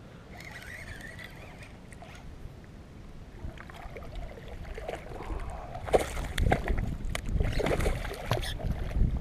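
Water splashing and sloshing as a hooked largemouth bass thrashes at the surface beside a kayak while being reeled in, with a run of splashes in the second half.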